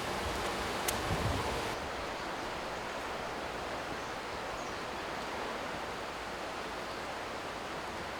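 Steady outdoor rushing noise, with a single short click about a second in.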